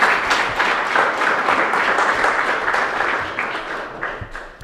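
Audience applauding: many hands clapping together in a dense patter that thins out and dies away near the end.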